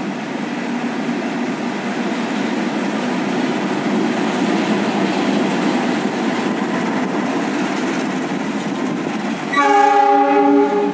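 A CC206-class diesel-electric locomotive (GE CM20EMP) runs on a shunting move with a steady rumble. Near the end it sounds its horn in one loud blast of just over a second.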